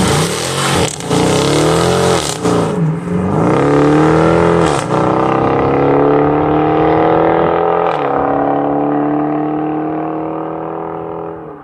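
Dodge 5.7 Hemi V8 accelerating hard through several quick upshifts, then pulling steadily in a higher gear with the pitch slowly climbing, fading near the end.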